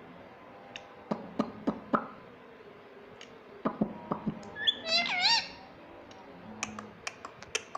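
Indian ring-necked parrot making a series of sharp clicks, with one short pitched call about five seconds in.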